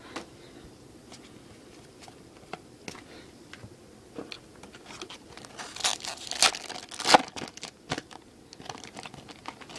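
Foil wrapper of a baseball card pack crinkling and tearing as it is opened, with scattered light ticks before it. The crinkling is loudest about six to seven seconds in.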